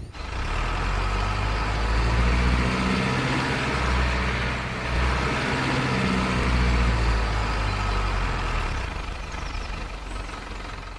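Toy garbage truck driving across concrete, its plastic wheels rolling under a low truck-engine rumble that swells and eases a few times and fades near the end.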